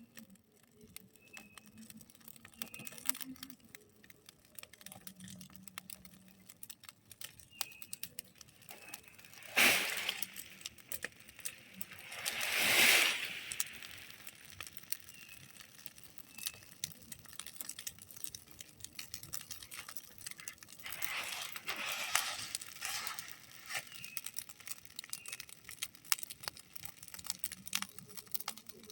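Open cooking fire crackling with many small sharp pops, swelling into louder rushing surges of flame about ten seconds in, again around thirteen seconds, and once more around twenty-two seconds.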